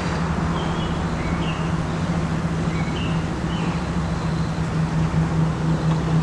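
Steady background hiss with a low electrical hum, and short faint high chirps every second or so.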